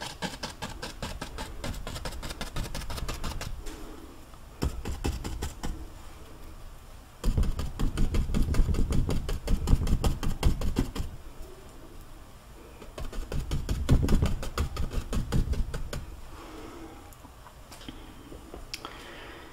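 Paintbrush dabbing and scratching oil paint onto a stretched canvas, laying in foliage as rapid taps and bristle scratches. It is loudest in two spells of a few seconds in the middle.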